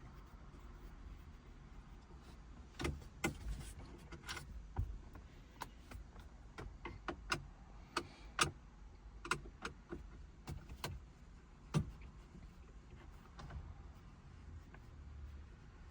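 Scattered small clicks and knocks of a Phillips screwdriver working the mounting screws out of a car-stereo head unit in the dash, with screws and plastic trim being handled; a few of the knocks are louder.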